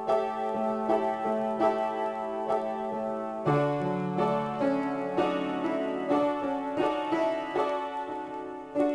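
Solo piano improvisation: notes and chords struck in a regular pulse over a held bass note. About three and a half seconds in, the harmony shifts to a new chord on a lower bass note.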